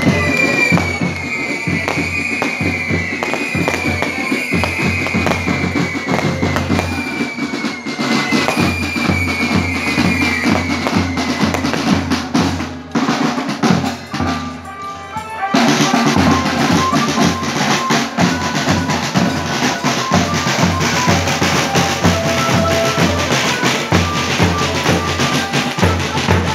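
Marching band drums, snare rolls and bass drum beats, playing steadily, with high falling whistles over them through the first half. The sound dips briefly a little past the middle, then the band comes back louder with held notes over the drumming.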